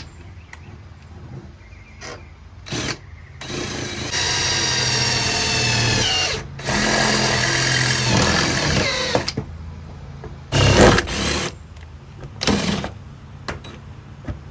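Cordless drill boring holes through the sheet-steel side panel of a school bus, at the corners of a marked-out opening. It runs in bursts: a short one about three seconds in, two longer runs of steady motor whine from about four to nine seconds, each winding down in pitch as it stops, then two short bursts near the end.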